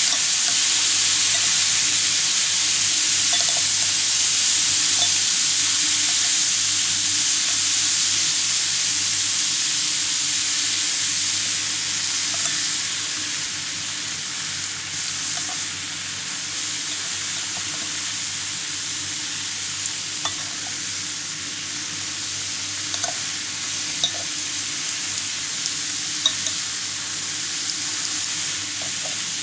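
Thin slices of beef sizzling steadily on a hot tabletop grill plate, the sizzle easing slightly about halfway through. A few light clicks of metal tongs against the grill come in the second half.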